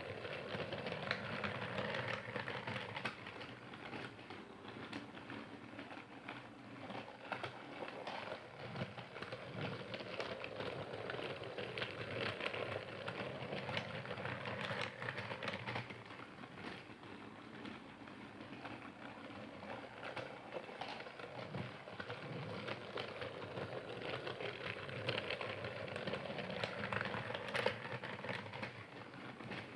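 Percy train sound: a steady, rapid mechanical clatter that carries on without a break.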